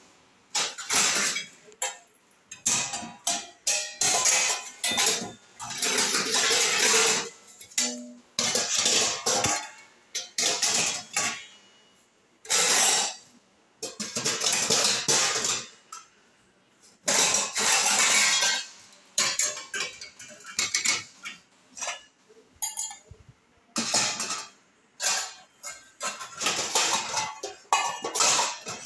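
Stainless steel plates, bowls and perforated idli plates clattering and clinking as they are set into a dishwasher's racks, in irregular bursts with short pauses between them.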